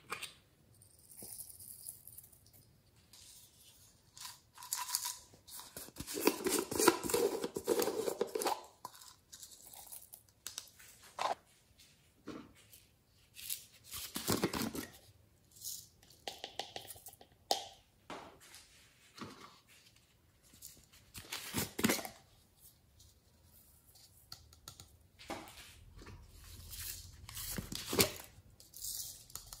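Close-up handling noises from slime-making materials: a string of irregular crackling, tearing and rustling sounds, with a longer, louder crackling stretch about a quarter of the way in. A plastic jar lid is twisted open near the end.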